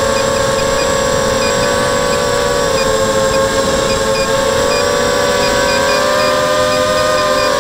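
ZMR quadcopter's brushless motors and propellers whining steadily, heard close through the onboard camera. The pitch drifts and shifts with throttle changes near the end.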